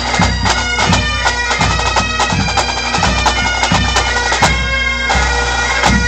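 Pipe band playing: Great Highland bagpipes sounding a melody over their steady drone, with snare, tenor and bass drums beating in time underneath.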